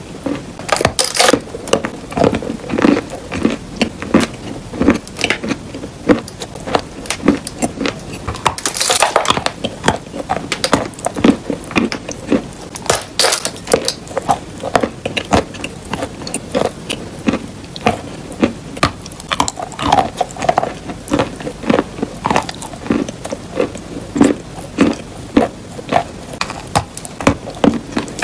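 Chunks of crumbly chalk being bitten and chewed: a dense run of sharp crunches and crackles, with a longer, louder crunch about nine seconds in.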